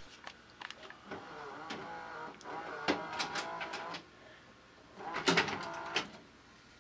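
VCR's tape mechanism clicking and whirring: scattered clicks, a motor whir from about one to four seconds in, then a cluster of louder clicks between five and six seconds.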